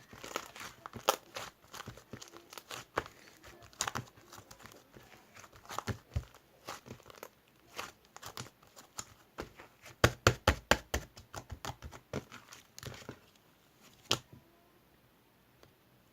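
Slime being squeezed and worked by hand, giving many sharp, irregular clicks and pops of trapped air. A quick run of loud pops comes about ten seconds in, and the sound stops a couple of seconds before the end.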